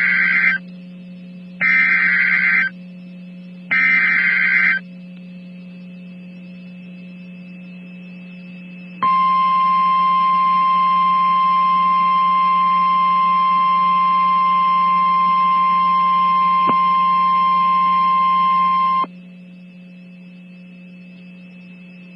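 Emergency Alert System SAME header: three short, screechy digital data bursts about a second apart. After a pause comes the single-pitch 1050 Hz NOAA Weather Radio warning alarm tone, held steady for about ten seconds and then cut off, which signals that a new warning follows. A low steady hum sits underneath.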